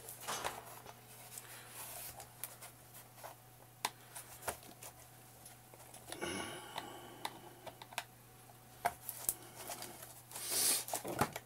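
Flat-head screwdriver prying at the joint between the blade and foot pocket of an Omer Stingray long fin: scattered small clicks and taps, a short squeaky creak about six seconds in, and a brief scrape near the end.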